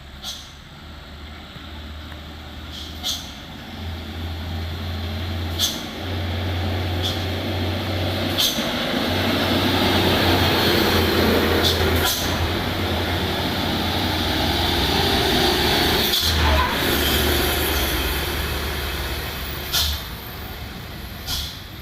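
Heavy diesel truck running and passing close, its engine drone and road noise swelling to a peak midway and then easing. Short sharp hisses of air brakes sound several times.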